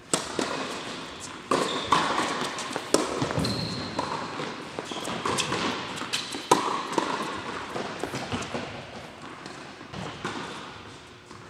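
Tennis rally on an indoor hard court: a serve, then sharp racket strikes on the ball and ball bounces at irregular intervals, each echoing in the hall, the loudest hit about six and a half seconds in. A few short high squeaks come between the hits.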